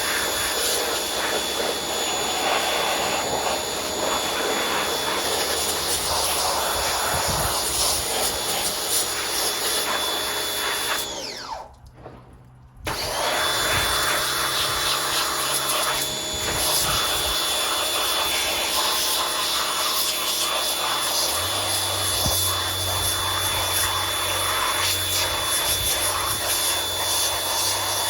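Pressure washer spraying water onto a chainsaw, its motor running with a steady high whine and hiss. About 11 seconds in it cuts out with a falling whine as the trigger is released, then starts again about a second and a half later.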